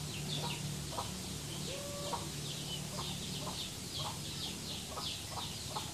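Chickens in a coop clucking, with a steady run of short, high, falling peeps.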